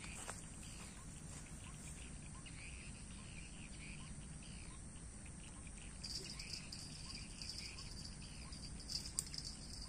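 Faint outdoor insect sounds: scattered small chirps, then a steady high-pitched insect buzz that comes in about six seconds in, with a single sharp click near the end.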